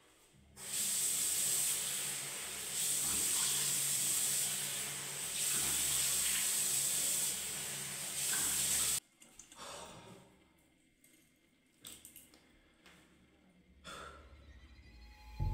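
A bathroom tap running steadily into a sink while a face is washed, turned off about nine seconds in. A few faint splashes and drips follow.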